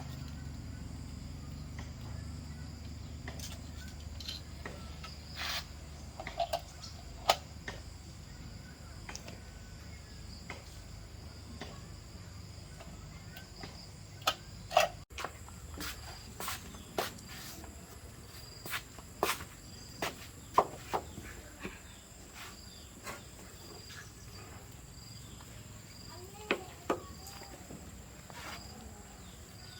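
A steady high insect drone with scattered sharp clicks and knocks, a couple of dozen in all, some in quick pairs.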